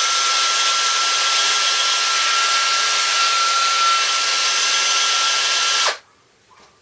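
DeWalt 18 V XRP cordless drill running steadily at free speed, a motor whir with a high steady whine, then cutting off suddenly about six seconds in. Its brushed motor runs without trouble after the commutator was cleaned of the bad brush contact that had made it overheat and smoke.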